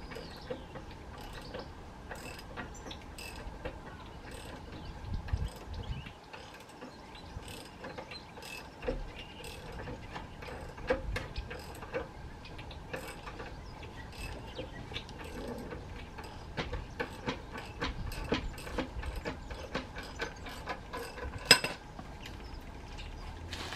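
Irregular metal clicks and clanks from hands working a motorcycle turntable set under the bike, with one sharp, much louder clack near the end.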